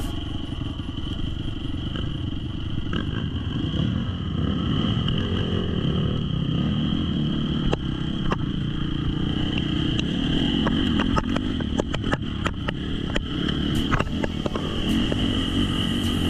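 Off-road trail motorcycle engine running on the move. Sharp knocks and clatter come through repeatedly from about eight seconds in.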